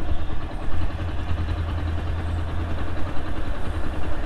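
Motorcycle engine idling, a steady low rumble.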